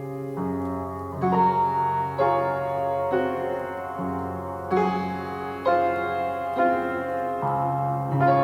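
Gentle piano music: slow chords and notes, a new one struck about once a second, each left to ring.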